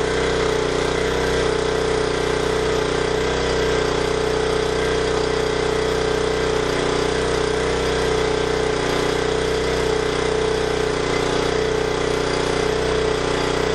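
Small 1200-watt portable generator's engine running steadily at a constant pitch under a 1000-watt load of halogen work lights, lugging pretty good.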